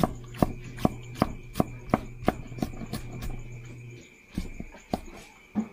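Steel cleaver chopping tomatoes on a thick wooden chopping block, a quick even run of knocks about three a second that slows to a few spaced chops near the end.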